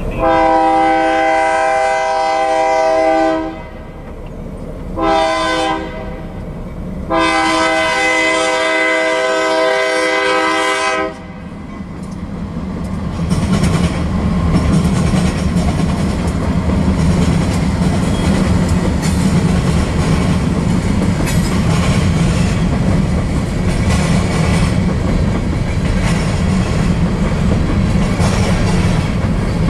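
A BNSF freight locomotive's multi-chime air horn sounds a long blast, a short one and another long one, the closing pattern of a grade-crossing warning. Then the grain train's rumble builds, and covered hopper cars roll past with a steady clickety-clack of wheels on the rails.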